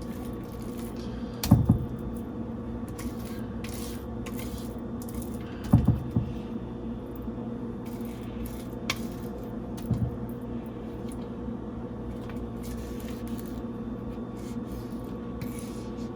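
Kitchen handling sounds while batter is spread into a pan and scraped from a bowl: soft scrapes and light clicks with a few dull knocks, one near the start, a double one around the middle, and another later. A steady appliance hum runs under it all.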